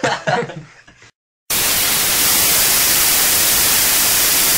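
Loud, steady TV-style static hiss, like white noise, cutting in suddenly about a second and a half in. Before it come a short voice and a brief moment of silence.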